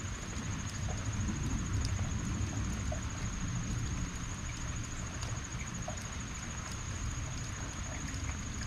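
Heavy rain falling steadily: an even hiss with scattered small drop ticks over a low rumble. A thin, steady high whine sounds throughout.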